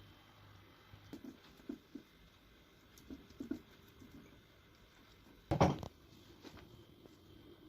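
Soft, scattered pats and taps of hands working pie dough and kitchen items, with one louder knock about five and a half seconds in.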